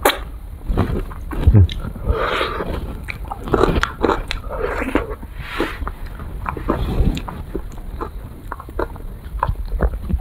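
Mouth sounds of eating an ice cream cone: repeated biting, chewing and wet smacking of the lips.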